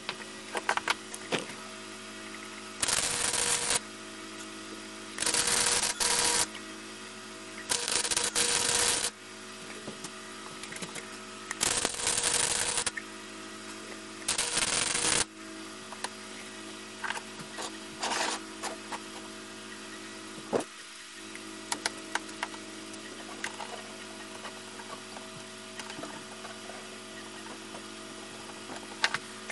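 Chicago Electric 90-amp flux-core wire welder laying short welds on mild steel bar: five bursts of welding arc, each about a second long, in the first half. A steady electrical hum runs underneath, and after the last weld only light clicks and small knocks are heard.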